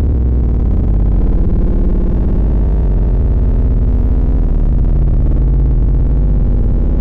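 Loud, steady synthesized deep bass from a subwoofer bass test track, with little in the treble.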